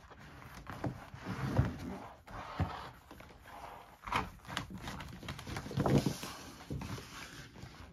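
Handling noise of a large laminated paper play mat being shifted and bent on a tabletop: irregular rustling and crinkling with soft knocks and bumps, loudest about a second and a half in and again near six seconds.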